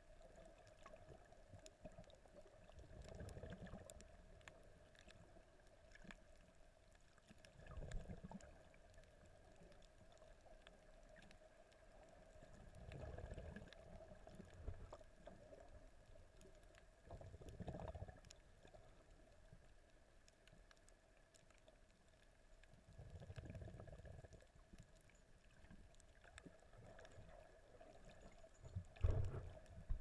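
Muffled underwater sound picked up through a camera's waterproof housing: soft low whooshes of moving water about every five seconds over a faint steady hum.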